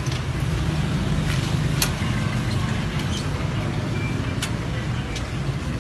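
Low steady rumble of a vehicle driving, heard from inside it, with a few sharp clicks.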